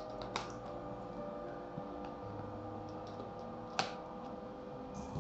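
A cardboard smartphone retail box is handled and slid in the hands, giving a few light clicks and taps: one about half a second in and a sharper one near the four-second mark. Faint background music with held notes plays underneath.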